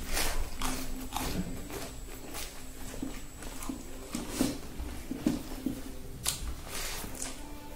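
Close-up chewing of a mouthful of rice, pork and raw cabbage, with wet mouth smacks and irregular short crunches every half second or so.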